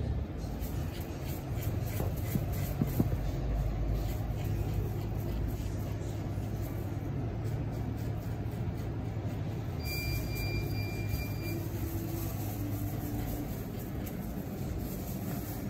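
A steady low hum runs throughout, with a few light knocks in the first seconds. About ten seconds in, a high steady tone sounds for about a second and a half.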